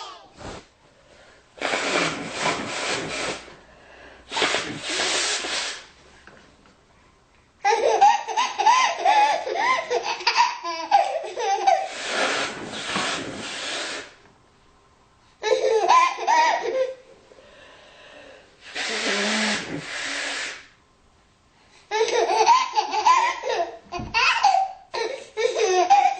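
A woman blowing her nose in four short noisy blasts. After the blasts a baby breaks into peals of giggling laughter.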